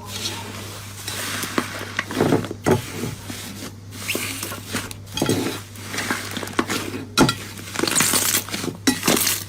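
Slime being squished and stretched by hand, giving wet crackling and popping in stretches with short breaks, over a steady low hum.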